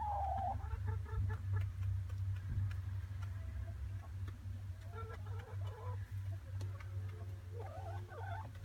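Hens in a nest box giving short, soft clucks at intervals, one sliding down in pitch at the start, while one of them lays an egg. A steady low hum runs underneath.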